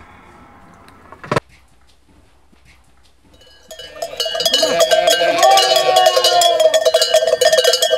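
A telephone handset clacks once as it is put down, then, about four seconds in, many sheep bells start clanging and ringing loudly, with a sheep bleating among them.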